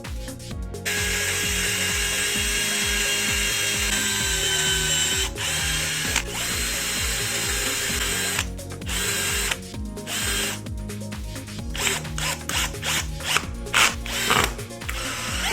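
A small power tool running steadily for about seven seconds, then in short on-off bursts. Background music with a steady beat plays under it.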